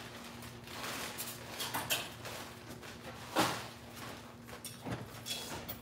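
Household handling noises: a plastic bag rustling, with scattered clicks and one sharp knock about three and a half seconds in.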